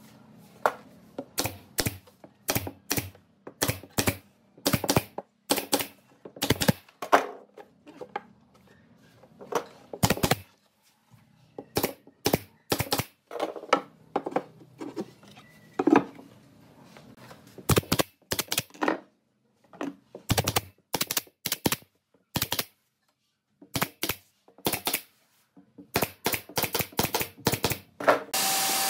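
Pine boards being nailed onto a glued wooden box frame: a long run of sharp strikes, some in quick clusters, with a few short pauses.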